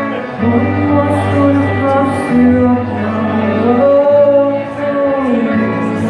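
A song performed live: a singer holding long, sliding notes over a band's steady bass and chords.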